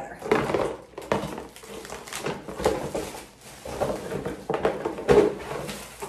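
Unpacking noise: a cardboard box and plastic wrapping rustling and crinkling as a hot-air brush is pulled out and unwrapped, with irregular scrapes and knocks, the sharpest about five seconds in.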